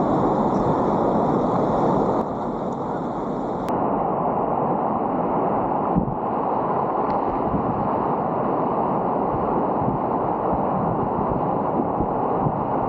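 Steady rush of whitewater on a river running high, heard close from a kayak.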